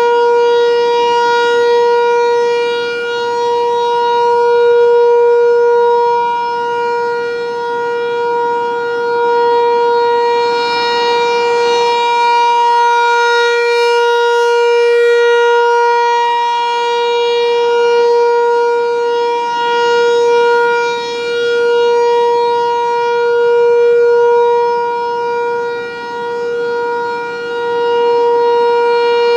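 ASC T-128 rotating outdoor warning siren sounding one steady, loud tone during its test. The pitch holds constant, and the loudness swells and fades every few seconds as the rotating horn turns toward and away from the listener.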